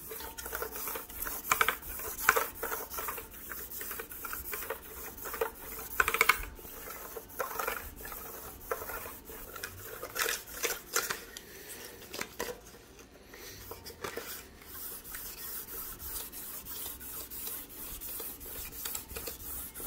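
Fine-grit sandpaper with aluminium powder rubbed back and forth by hand across the aluminium deck face of a BMW M54 cylinder head: an uneven run of scratchy strokes, some louder than others, softer near the end. The deck is being polished to restore its finish for a steel head gasket.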